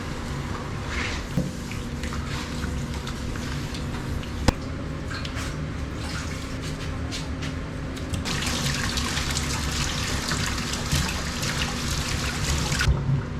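Water running from a tap, starting abruptly about eight seconds in and shut off near the end, over the steady rush of a mountain stream. A single sharp click about four and a half seconds in.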